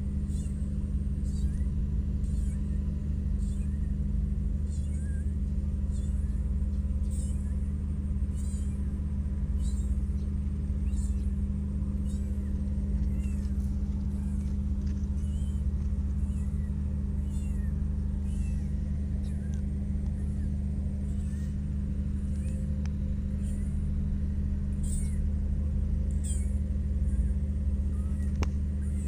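A steady low machine hum throughout, with short high chirps repeating about once a second and faint kitten mews now and then.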